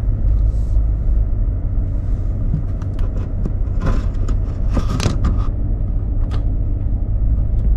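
Vehicle driving slowly on a dirt road, heard from inside: a steady low rumble of engine and tyres, with scattered small clicks and crackles from the road surface.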